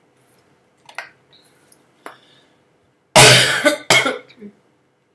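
A woman coughing, two harsh coughs in quick succession about three seconds in: the lingering cough of an illness that has lasted ten days.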